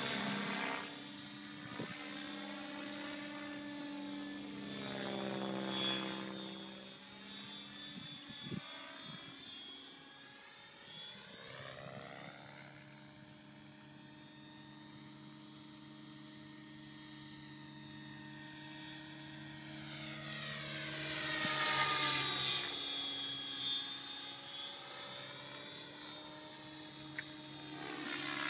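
Align T-Rex 700 electric RC helicopter flying overhead, its rotor and motor whine sweeping in pitch as it comes close and moves away. It is loudest as it passes about six seconds in and again about twenty-two seconds in, and fainter while it is farther off in between.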